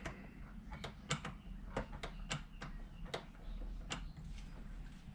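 Light, irregular metallic clicks, about nine, as the throttle linkage of a BMW M52 individual throttle body kit is worked by hand.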